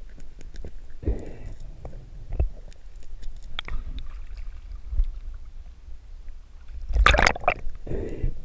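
Water sloshing and splashing around a freediver swimming at the surface, with scattered small clicks and a louder rush of splashing water about seven seconds in.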